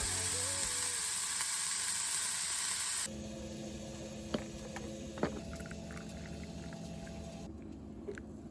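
Food sizzling in a frying pan, a loud hiss that cuts off abruptly about three seconds in. After it comes a quieter stretch with a low steady hum and a few sharp clicks.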